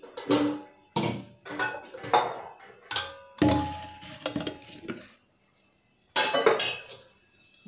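Kitchen pots and dishes being handled on a counter: a string of clinks and knocks, a short pause, then another clatter near the end.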